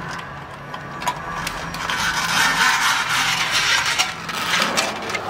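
Mechanical ratcheting and scraping from hand work on car parts, with a few sharp clicks. It swells louder through the middle of the stretch.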